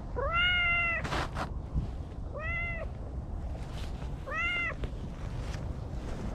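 Domestic cat meowing three times: one longer meow near the start, then two shorter ones about two seconds apart. A brief rustle follows the first meow.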